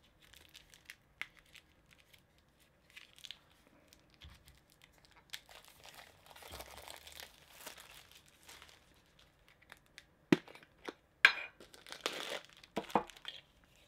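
Plastic wrapping crinkling and tearing as a Funko Soda can is unsealed and its figure unpacked by hand, with two sharp clicks a little after ten seconds in.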